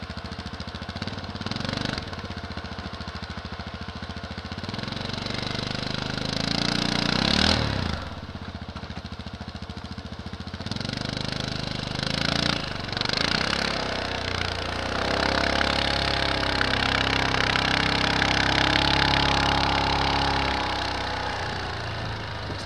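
Yamaha Rhino 700 side-by-side on snow tracks, its single-cylinder engine revving up and down as it is driven through deep snow. The revs climb about four seconds in, drop sharply near eight seconds, climb again around twelve seconds and hold high for several seconds before easing off near the end.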